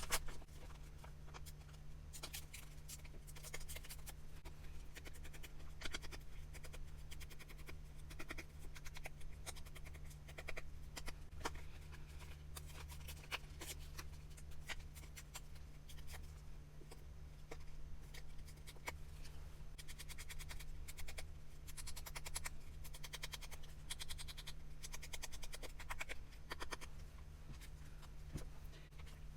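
Faint rustling and small irregular clicks of paper pieces and metal charms being handled and arranged, over a steady low electrical hum.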